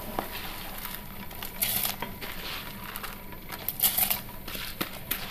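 Kaima rice poured into a steel pot of boiling water, the grains pattering into the water over a steady hiss, with louder spells about two and four seconds in.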